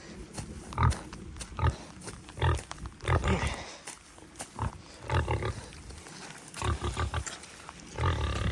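A pig grunting, a string of short low grunts roughly every second, a run of quicker ones near the end.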